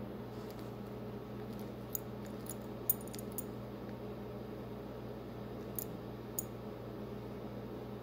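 Links of a heavy metal chain clinking lightly as a budgerigar picks at them with its beak: several short, separate clinks, most of them between two and three and a half seconds in and two more a little before six and a half seconds, the loudest about three seconds in. Underneath is a steady low hum.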